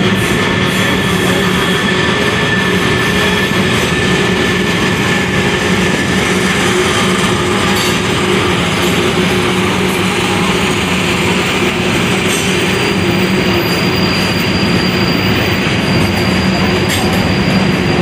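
Manifest freight train's tank cars and autorack cars rolling past on a tight curve: a steady, loud rumble of steel wheels on rail with steady high wheel squeal, a thin high squeal joining about two-thirds of the way through.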